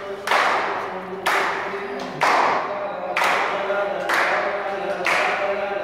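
A crowd clapping together in a slow steady rhythm, about one clap a second, with each clap echoing briefly in the hall. Under it are held musical or sung notes.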